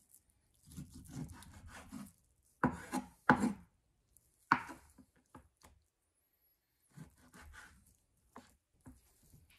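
Chef's knife slicing through raw pork butt on a wooden cutting board: drawn cutting strokes, with three sharp knocks of the blade striking the board in the middle.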